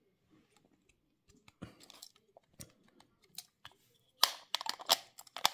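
Small plastic and metal parts of a toy Maersk container trailer clicking and tapping as it is handled in the hands, with a cluster of louder, sharper clicks from about four seconds in.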